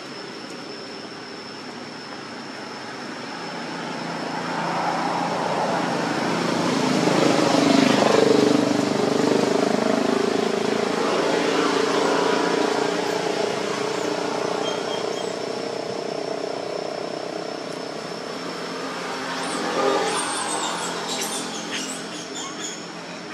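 Motor vehicle engine passing: its hum swells over a few seconds, holds, then slowly fades away. A short clatter of clicks comes near the end, over a steady high thin tone.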